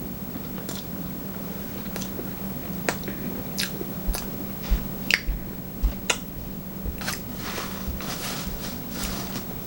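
A person chewing sushi close to the microphone: wet mouth smacks and small clicks at irregular moments, a few of them a little louder in the middle, over a steady low hum.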